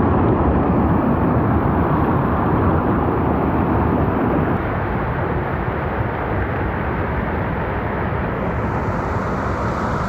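Shallow mountain stream rushing over boulders and small cascades: a dense, steady rush of water, a little quieter from about halfway through.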